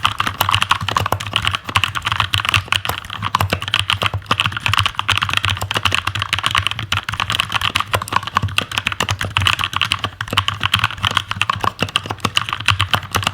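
Fast, continuous typing on a stock, unlubed Keychron K2 mechanical keyboard: many keystrokes a second, the clicks running on without a break.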